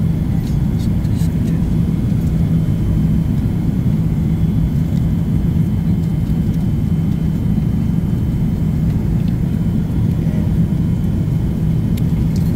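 Steady cabin noise of a Boeing 777 in flight: a constant low rumble with a steady hum. A few light clicks of cutlery come near the start and again near the end.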